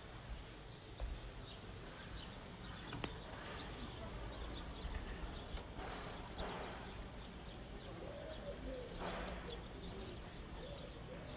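Birds calling outdoors: a low, wavering cooing from about eight seconds in and a few faint high chirps, over a steady low rumble.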